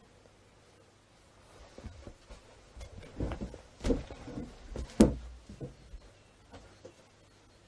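A cluster of short knocks and bumps between about two and six seconds in, the two loudest around four and five seconds, over a faint steady hum.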